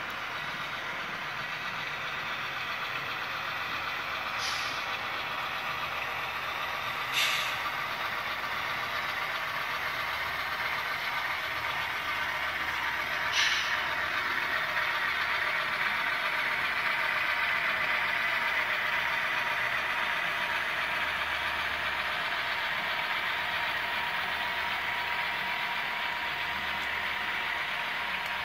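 HO-scale model freight train hauled by New Haven road-switcher diesel models rolling past, a steady engine-like running sound with a constant whine. Short hisses, like air being let off, break in about four and a half, seven and thirteen seconds in.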